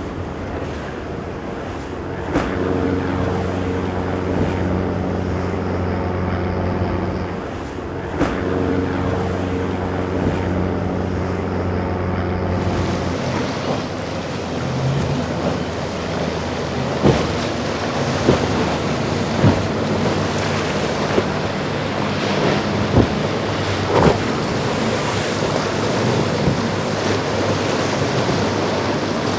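Boat engines droning steadily over surf and wind rumbling on the microphone. About halfway through, the engine drone fades out, leaving a rougher wash of waves and wind with several sharp thumps.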